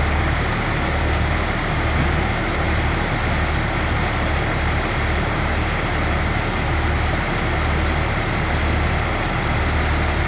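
An engine idling, with a low throb pulsing about once a second under a steady hiss.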